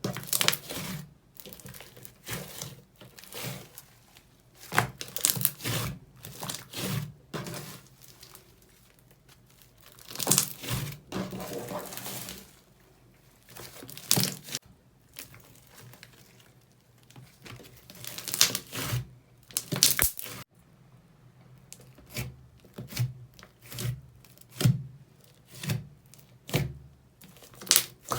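Slime being squeezed and stretched by hand, making irregular bursts of crackling with sharp clicks, broken by short quieter pauses.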